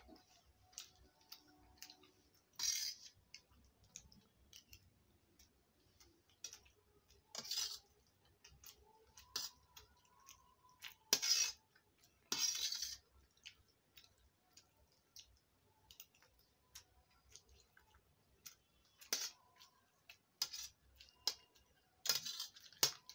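Steel spoons clinking and scraping against a steel plate of pasta: frequent light clicks, with several louder, longer scrapes spread through, including two close together near the end.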